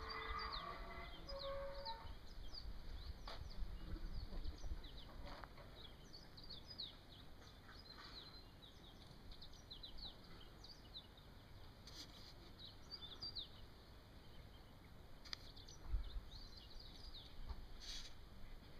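Many small birds chirping, with short high calls overlapping continuously. Low rumbles on the microphone in the first couple of seconds and again briefly near the end.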